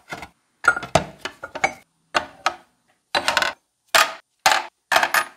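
Rusty steel parts of a disassembled DOKU AA-1.3B air hammer set down one after another into a clear plastic parts box, clinking against each other and knocking on the plastic in a string of short, sharp clatters.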